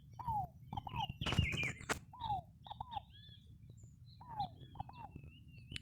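Wild birds singing: a three-note call (one note, then a quick pair, each sweeping down in pitch) repeats about every two seconds, with higher chirps and twitters from other birds. About a second and a half in there is a brief, louder noise.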